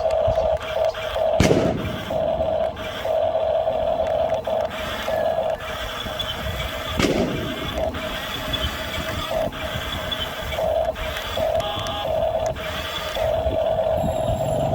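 Small electric motor of a radio-controlled construction model whining in short, irregular on-off bursts as the controls are worked, with two sharp clunks, one about a second and a half in and another near the middle.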